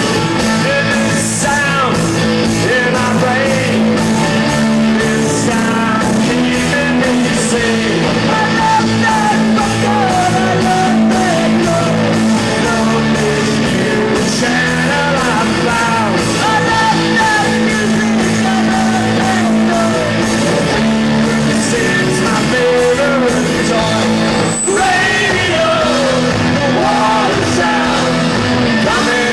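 Live rock band playing loudly: electric guitars over a steady drum beat, with a wavering lead line above.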